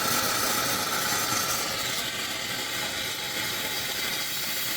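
Steam wand of a 1930s–40s espresso machine venting steam with a steady hiss.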